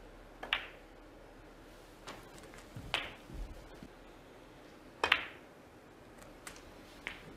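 Snooker balls clicking: the cue tip striking the cue ball and balls knocking together during a break. About six sharp clicks come one to two seconds apart, several with a short ring after them.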